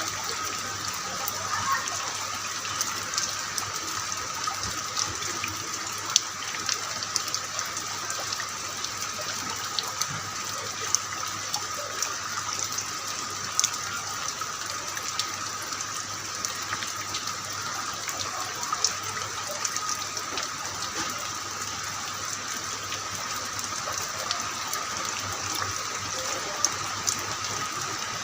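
Heavy rain falling steadily, with scattered sharp taps of drops striking nearby surfaces.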